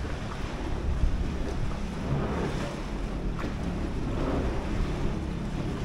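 Wind buffeting the microphone over a steady low rumble and water noise from a boat under way.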